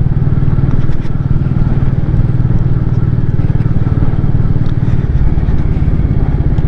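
Royal Enfield Meteor 350's single-cylinder engine running steadily at low speed as the motorcycle rides over cobbles.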